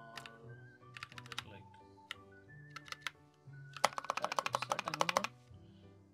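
Typing on a computer keyboard: a few short clusters of keystrokes, then a fast, even run of about fifteen keystrokes about four seconds in as a word is deleted. Soft background music underneath.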